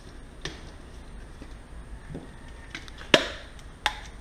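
A small metal paint can and its plastic cap being handled on a workbench: a few light clicks, then two sharp knocks about three seconds in, the first the loudest.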